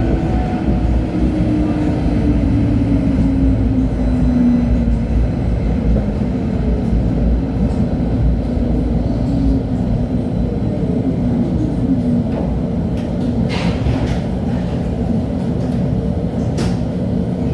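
LHB TW2000 light-rail car running, with a steady low rumble of wheels on rail. The traction drive's tone falls slowly in pitch over the first few seconds and again around the middle. A few sharp clicks come near the end.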